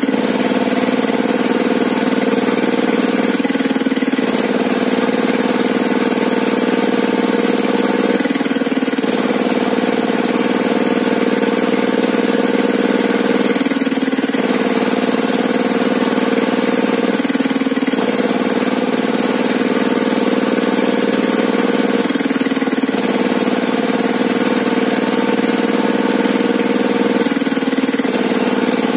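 Engine running steadily, with a brief dip in its note roughly every four to five seconds.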